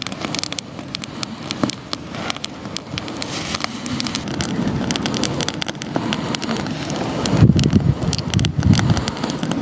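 Campfire crackling with frequent sharp pops, with wind buffeting the microphone in gusts from about seven seconds in.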